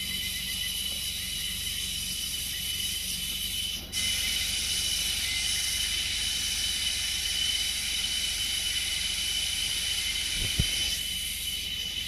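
Steady high-pitched drone of a rainforest cicada and insect chorus, with constant whining tones riding on a dense hiss; it dips briefly about four seconds in and carries on slightly louder. A low rumble sits underneath, and there is a soft thump near the end.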